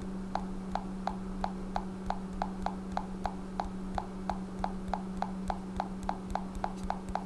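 Fingertip taps on a smartphone touchscreen, about three a second in an even rhythm, over a steady low hum.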